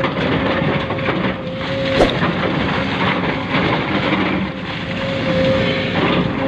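Small electric motor and plastic gearbox of a radio-controlled model vehicle running with a steady whine over a rough grinding noise, with a single click about two seconds in.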